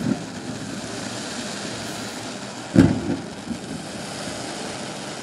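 Fireworks: a loud bang about three seconds in, followed by a couple of smaller pops, over steady background noise.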